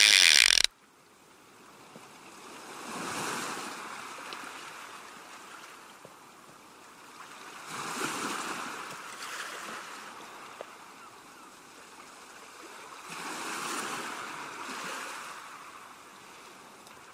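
A short, loud logo sting that cuts off under a second in, then sea waves washing against a breakwater, swelling and fading three times.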